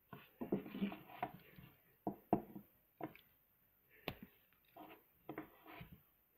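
Plastic Lego pieces of a fidget spinner clicking and rattling as they are turned over in the hands, with a dense clatter in the first two seconds. Just after four seconds a Swiss army knife's blade is pulled open with a single sharp click, and a few softer knocks of handling follow.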